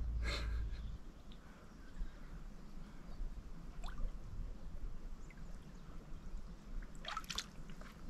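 Water trickling and dripping faintly around a large pike held in the shallows for release, with a few small splashes near the end. A low rumble fills the first second.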